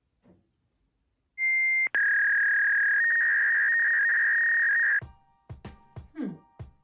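A loud, steady electronic beep tone: a short higher beep, then a longer one lasting about three seconds that cuts off suddenly. About five seconds in, music with plucked notes begins.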